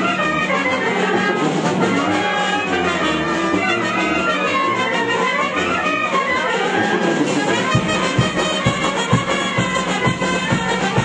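Brass band music playing for the dancers, with steady low beats about twice a second coming in after about eight seconds.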